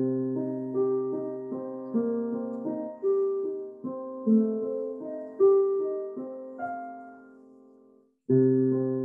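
Digital piano played with a piano voice: a slow melody of single notes over a held low chord. The notes fade away about eight seconds in, and the next phrase starts a moment later.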